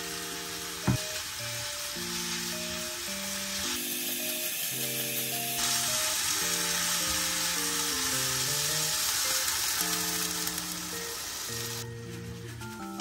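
Chicken pieces, sliced onion and green onion sizzling as they are stir-fried in a nonstick wok, with a single sharp knock about a second in. The sizzling fades near the end. Background music with mallet-like tones plays throughout.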